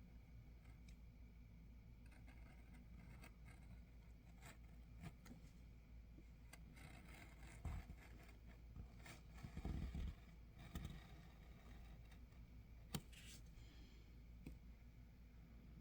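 Faint handling noises over a low steady hum: soft scrapes and rustles of a plastic planner cover being worked by hand, with a few light knocks around the middle.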